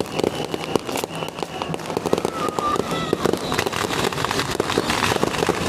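Strings of firecrackers going off, a rapid, continuous crackle of pops.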